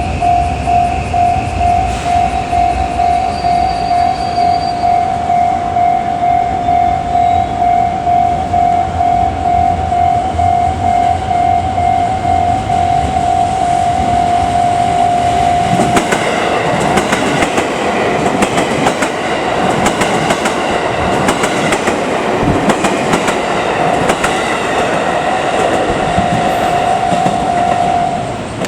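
Japanese level-crossing warning bell ringing in rapid, even strokes. About halfway through, a JR West 281 series Haruka limited express electric train passes over the crossing with a rush of noise and wheels clattering on the rail joints; the bell stops just before the end.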